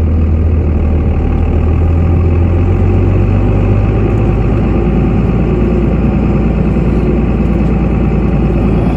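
Truck engine running, heard from inside the cab; its low hum shifts in pitch about three to four seconds in.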